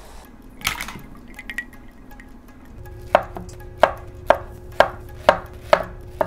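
Knife slicing through a peeled pineapple and knocking on a wooden cutting board, a steady run of sharp chops about two a second starting about three seconds in. A single knock comes about a second in.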